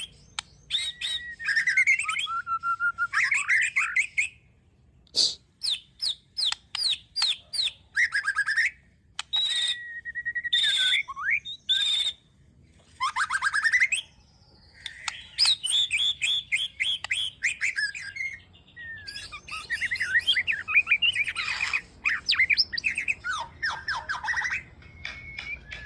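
A young white-rumped shama singing: a fast, varied run of whistled notes, chirps, trills and sharp clicks, in phrases broken by short pauses.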